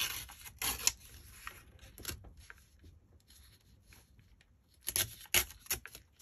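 Paper strips torn along the edge of a clear plastic ruler: a few short ripping sounds with some rubbing between them, the loudest right at the start, just before one second in, and about five seconds in.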